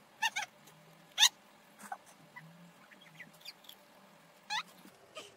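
A toddler's short, high-pitched squeals: two quick ones just after the start, the loudest a little after a second in, a fainter one near two seconds, and one more near the end.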